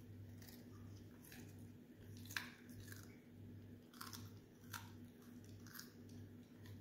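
Australian shepherd chewing a raw carrot, giving faint, irregular crunches roughly once a second.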